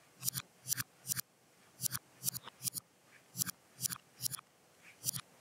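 Crisp double clicks while bricks are placed one after another in LEGO Digital Designer. They come in runs of three, a run about every second and a half.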